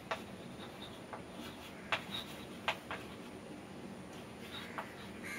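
Chalk writing on a chalkboard: scratchy strokes and a few sharp taps of the chalk against the board. The loudest taps come about two seconds in and just before three seconds.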